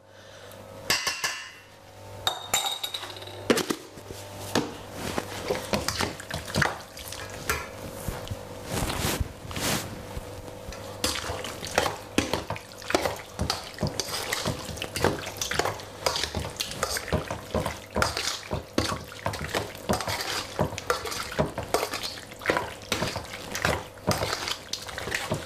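Metal spoon scraping and clinking against a stainless steel mixing bowl as seasoned raw chicken pieces are stirred. It is a fast, irregular clatter that starts about a second in.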